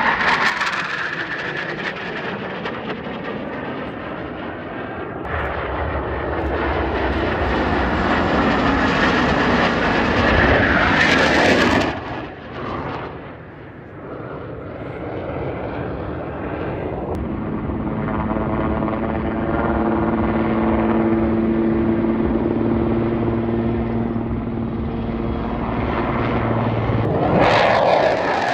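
Military fighter jets flying low past, a loud jet-engine roar that swells and fades with each pass. The sound changes abruptly about twelve seconds in and again near the end; in the later part a steady low engine drone runs under the roar.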